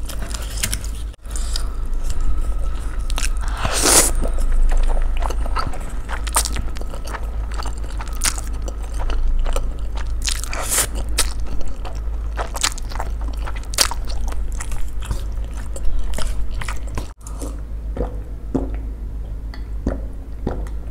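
Close-up eating sounds: a person chewing and slurping spicy instant noodles, with many sharp wet mouth clicks and a longer slurp about four seconds in. A steady low hum runs underneath.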